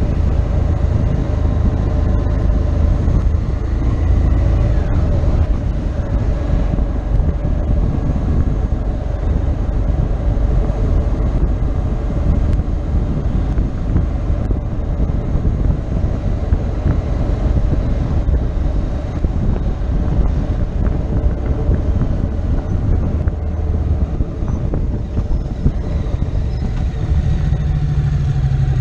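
Motorcycle riding at a steady road speed: its engine running under a continuous rush of wind on the microphone.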